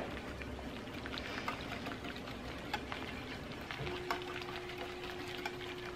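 Wire whisk stirring thin broccoli soup in a slow cooker crock: soft swishing and sloshing of liquid with many light clicks of the wires against the crock. About four seconds in, a faint steady hum starts.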